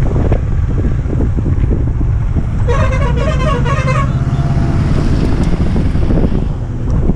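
Wind rush and motorcycle engine rumble while riding. Around the middle, an oncoming truck's warbling multi-tone horn sounds for about a second and a half.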